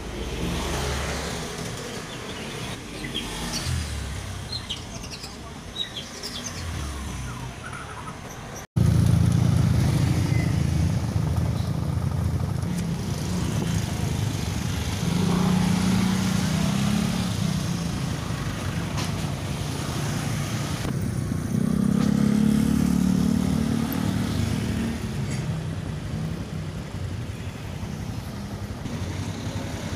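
Street traffic, motorcycles and cars going by, with a few faint bird chirps. About nine seconds in the sound cuts, and a louder, steady low engine drone takes over, swelling twice.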